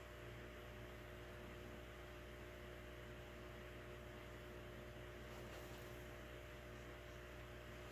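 Faint, steady electrical hum over a low hiss.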